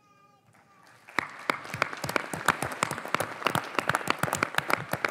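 Audience applause: many people clapping, breaking out about a second in and continuing steadily.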